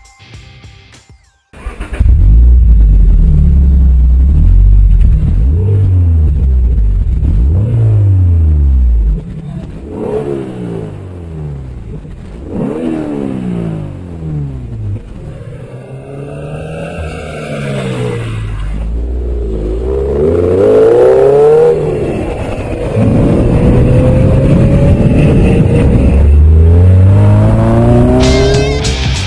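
Toyota FT86 / Subaru BRZ flat-four engine breathing through a Scorpion aftermarket exhaust, revved up and down again and again, the pitch climbing and dropping with each rev. It starts abruptly about two seconds in, and is loudest at the start and again in the second half.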